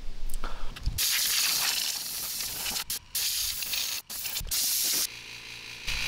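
Compressed-air blow gun hissing in several blasts with short breaks between them, blowing dust and debris out of a refrigerator's condenser coils and compressor compartment.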